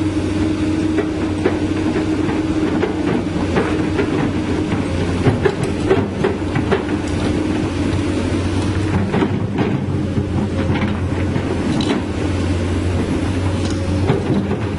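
Komatsu PC200-8 hydraulic excavator's diesel engine running steadily under load, with a steady hum and irregular metallic knocks and clanks from the working machine.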